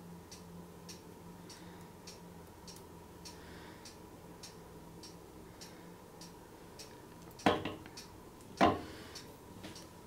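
A clock ticking steadily and faintly, just under two ticks a second. Near the end come two louder knocks about a second apart.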